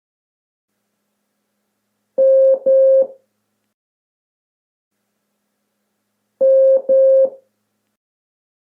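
Morse code for the letter M sounded as electronic beeps: two long tones (dash dash), played twice about four seconds apart.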